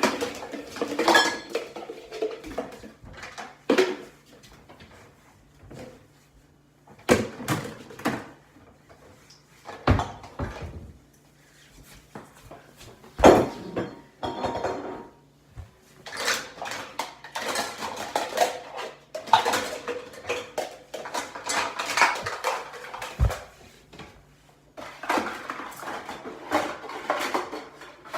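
Dishes and cutlery clattering and clinking as a dishwasher is unloaded, in irregular bunches of knocks with short pauses between them.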